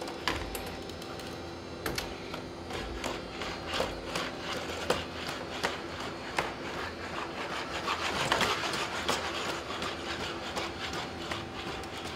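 Boston Dynamics SpotMini robot walking through a doorway with its arm holding the door: irregular taps of its feet on the floor over a steady mechanical hum, with a louder rubbing stretch about eight seconds in.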